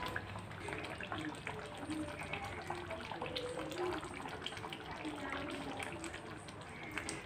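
Beef and potato curry with coconut milk bubbling in a steel pan on the stove, a steady wet bubbling with many small pops; a spoon stirs through it near the end.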